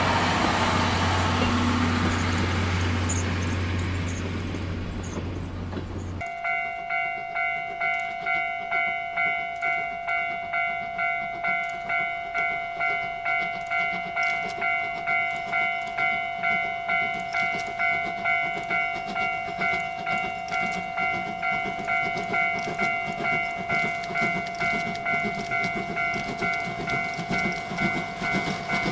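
Passenger coaches running past close by, a rushing rumble that fades over the first few seconds. Then a C11 steam tank locomotive working upgrade, its exhaust chuffing steadily about two and a half times a second, with a steady high tone held above it.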